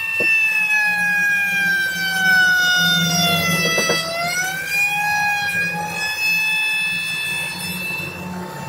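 Stepper motors of a homemade CNC engraving machine whining as the axes move, a high tone of several pitches over a low hum; the pitch slides down over the first few seconds, then rises again and holds as the motor speed changes.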